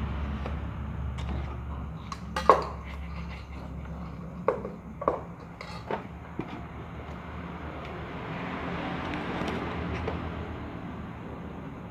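Three cats eating from a plastic plate: scattered clicks and knocks of teeth and paws on the plate amid soft chewing, the loudest knock about two and a half seconds in, over a low hum in the first few seconds.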